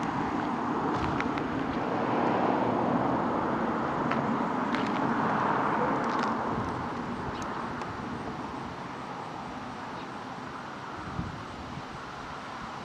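Road traffic: a vehicle passing on the road, its tyre and engine noise swelling a couple of seconds in and then slowly fading away.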